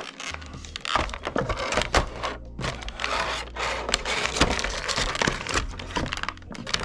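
Toy packaging being handled and opened: irregular crinkling, rustling and sharp clicks.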